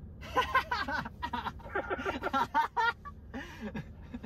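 A man laughing and chattering without clear words, over a low steady hum.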